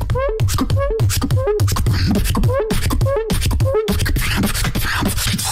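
Beatboxing into a handheld microphone: deep bass kicks, each with a short bending vocal tone, repeating a little under twice a second. About four seconds in this gives way to a breathier, hissing stretch.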